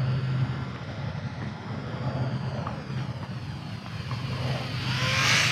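Electric motor and three-bladed propeller of an Eachine Spitfire micro RC warbird whining in flight, the pitch slowly bending as the plane moves past. About four and a half seconds in it grows louder and brighter as the throttle is pushed up.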